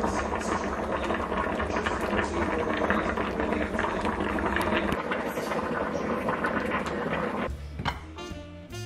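Capsicum (bell pepper) stir fry with curry leaves sizzling in a pot, a steady hiss with fine crackles. Near the end it cuts to jazz music.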